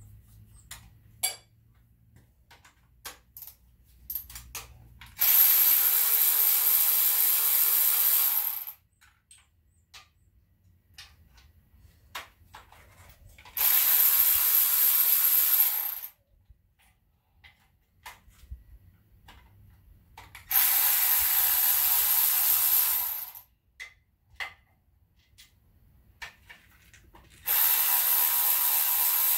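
A hand-held power tool run in four bursts of about three seconds each, driving fasteners on top of an AMC 4.2 L inline-six engine being torn down, with light clicks and clinks of metal between the bursts.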